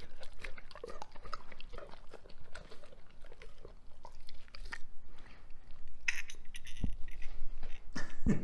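Doberman licking and chewing at a piece of raw meat held out by hand, a run of irregular wet smacking and mouthing sounds.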